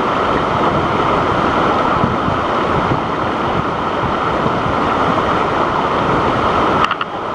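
Steady loud rush of a waterfall's falling water close to the microphone. It cuts off abruptly near the end.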